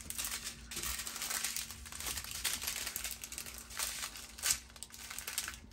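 Small plastic bags of diamond painting drills crinkling and rustling as they are handled and laid out on the canvas, with a sharper crackle about four and a half seconds in.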